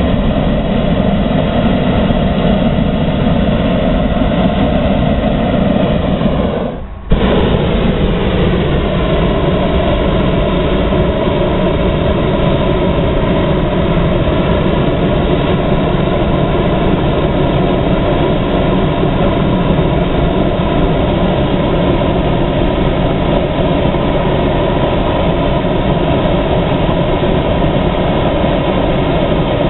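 Hot air balloon's propane burner firing in a long, steady blast. It cuts out for a moment about seven seconds in, then carries on.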